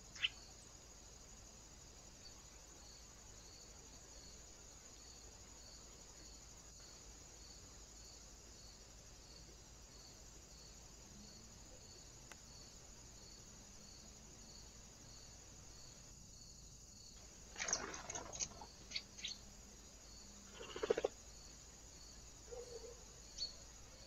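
Faint outdoor background hiss with a soft high tick repeating a little more than once a second. There is a sharp click at the very start, then a quick run of taps about three-quarters of the way through and a louder knock shortly after.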